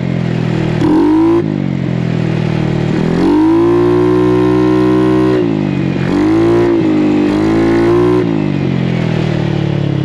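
GY6 171cc single-cylinder four-stroke scooter engine on electronic fuel injection, revving under throttle while riding. There is a short rev about a second in, then a long rise near 3 s that holds a steady pitch, a brief dip, a second hold until about 8 s, and the revs falling away near the end. It pulls cleanly with no skipping or stumbling.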